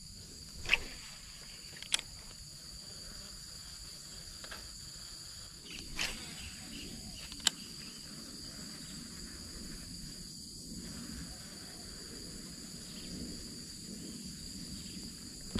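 Steady, high-pitched chorus of insects, with a few sharp clicks and taps scattered through the first half, the loudest about a second in.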